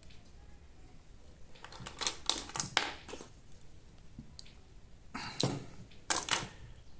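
Fingers twisting a drill field coil's stripped copper magnet wire around its small metal crimp terminal, close to the microphone: short bursts of scraping and clicking handling noise, in three clusters.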